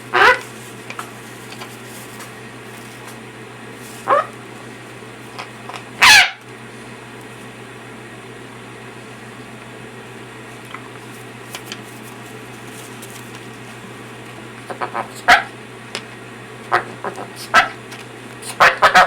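Patagonian (burrowing) parrot giving short, sharp calls, spaced several seconds apart, with the loudest about six seconds in and a quicker run of calls near the end.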